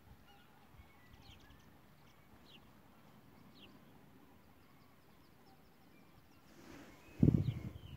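Faint outdoor air with a few short, high bird chirps scattered through. Near the end a short, loud low rumble hits the microphone.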